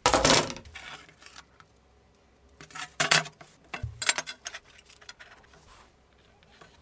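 Pieces of steel stock for a damascus billet clinking and clattering against each other as they are handled: a loud ringing clink at the start, then two more bursts of clatter about three and four seconds in.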